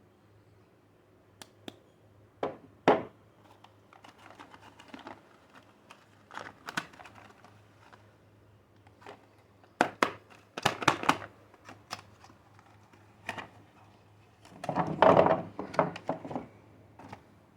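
Soap wrappers being handled and peeled off bars of soap: scattered bursts of crinkling and tearing packaging with sharp clicks and taps. A busy run of crinkling comes about ten seconds in, and the longest, loudest one near the end.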